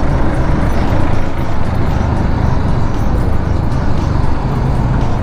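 Motorcycle engine running steadily while riding, with constant wind and road rumble, heard through a microphone mounted inside a full-face helmet.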